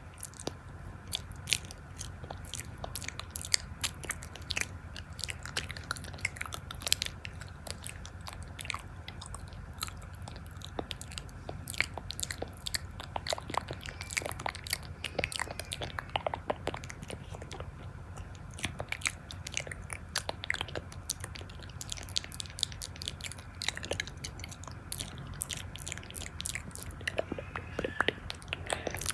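Close-miked ASMR eating: biting and chewing, with a steady run of small crisp crunches and mouth clicks.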